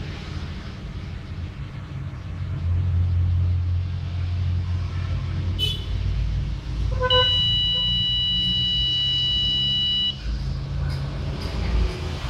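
Countdown timer's alarm buzzer sounding one steady high beep for about three seconds once the count hits zero, starting about seven seconds in and cutting off sharply. A low background rumble runs underneath.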